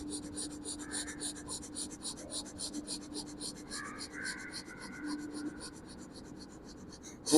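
Rapid, forceful short breaths in and out, an even train of quick hissing strokes at about five a second that stops abruptly near the end: a fast pranayama breathing round practised against wheezing.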